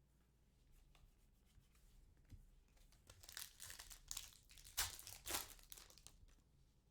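Faint rustling and crinkling of trading cards being handled, with a few louder quick swipes between about three and five and a half seconds in.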